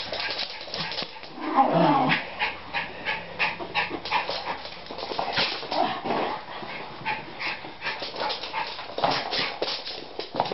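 Two schipperkes in rough play, giving short vocal calls, the loudest about a second and a half in, amid a steady patter of quick clicks and scuffles from their running.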